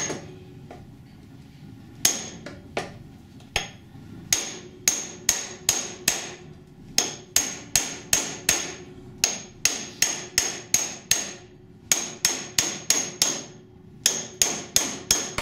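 Hand hammer striking the steel front chassis rail of an Audi, each blow with a short metallic ring: a few scattered blows, then runs of about three strikes a second with short pauses between. The blows reshape the rail's stiffening rib after the rail has been pulled straight.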